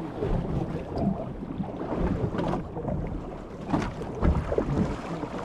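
Wind buffeting the microphone on a small fishing boat at sea, with water moving against the hull and a couple of sharp knocks around the middle.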